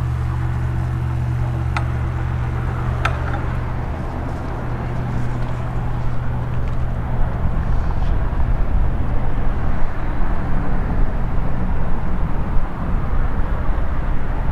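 Steady low drone of passing vehicle traffic, with two light clicks in the first few seconds and rougher noise growing louder in the second half.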